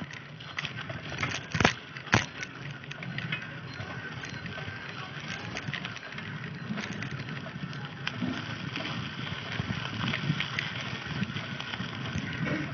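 Bicycle rolling along a road: tyre noise with rattling and scattered small clicks from the bike. There are two sharp knocks about a second and a half and two seconds in.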